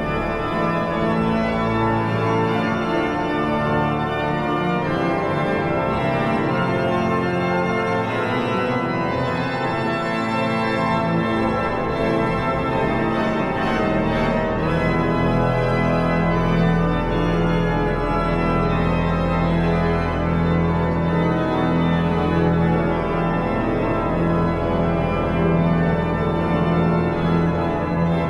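Hinsz pipe organ playing dense, sustained chords; a low pedal note comes in about halfway through and holds.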